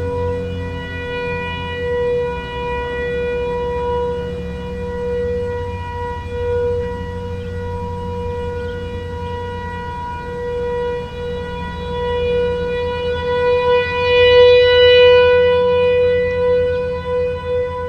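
Outdoor warning siren sounding the steady tone of a monthly test, holding one pitch while its loudness swells and fades, loudest near the end. This is most likely the newer Equinox siren, which runs three minutes, still sounding after the one-minute sirens have stopped.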